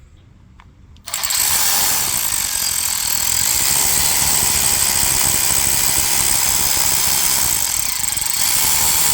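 A power wrench running continuously, starting about a second in, spinning out the bolts that hold a power steering pump to the engine.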